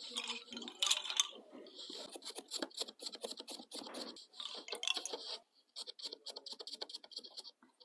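Hand weaving at a loom: a quick run of scratchy clicks and rustles of yarn being worked through and tensioned on the warp threads, growing sparser near the end.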